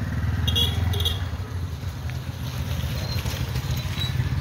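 Small motorcycle engine running steadily at low revs, a low, even putter, as the bike rolls down a steep, muddy dirt slope.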